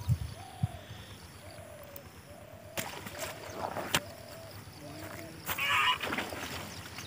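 A bird calling over and over in short, low, honking notes, about eight of them spaced irregularly. A few sharp clicks come in the middle, and a brief louder burst of rustling noise follows about five and a half seconds in.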